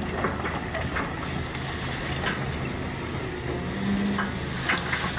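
Excavator's diesel engine running steadily, with a few short knocks and clanks.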